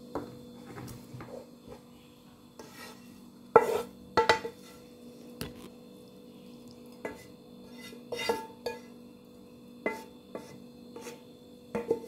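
A serving utensil knocking and scraping against a frying pan and a ceramic plate as cooked green beans are dished out: scattered clinks with a short ring, the loudest about three and a half, four and eight seconds in.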